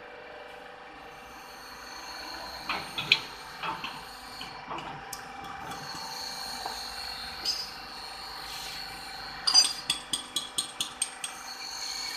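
Metal valve parts clinking and knocking as they are handled and set on a hydraulic press fixture, over a steady machine hum. About nine and a half seconds in comes a quick run of about nine sharp metallic ticks, roughly five a second, the first the loudest.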